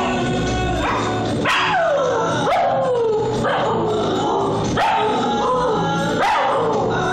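Siberian husky howling along with a song: about four short howls, each starting high and sliding down in pitch, over the music.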